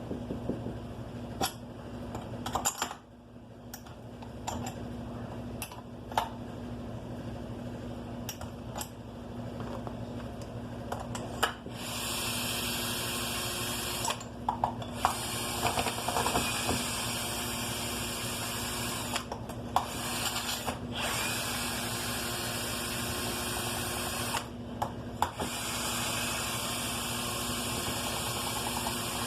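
A handheld power tool running in four long bursts in the second half, with short gaps between them. Before it starts there are scattered clicks and clinks of metal parts being handled.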